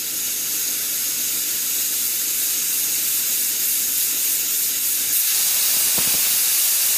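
Stovetop pressure cooker whistling: steam jets from the weight valve in a continuous loud hiss. This is the whistle that is counted to time the cooking, here the last of two.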